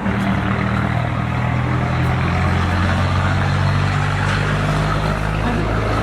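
A steady, loud low engine or motor drone with a rushing noise over it.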